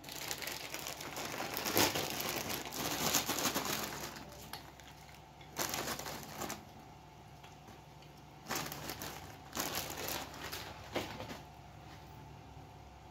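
Clear plastic bag of kerupuk shrimp crackers crinkling as hands pull crackers out and lay them on a bowl of soup, in irregular bursts, busiest in the first few seconds.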